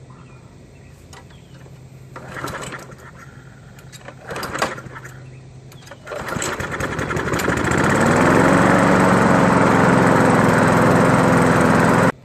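Craftsman push mower's Briggs & Stratton engine being pull-started: two short cranking bursts, then it catches about six seconds in, picks up speed and settles into a steady run. It runs because the stuck brake-bar cable that held the kill switch on has been released.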